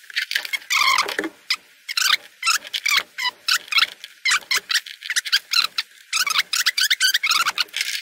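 Fast-forwarded audio of hands reconnecting wires and switch connectors under a plastic ammo-box lid: a rapid, continuous string of short, high-pitched squeaky chirps and clicks with no low end.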